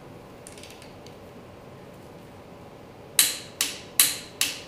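Ratchet wrench turning a main bearing cap bolt on a Ford 400 V8 block: faint clicks about half a second in, then four sharp ratcheting strokes about 0.4 s apart near the end, as the bolt is run down snug before torquing.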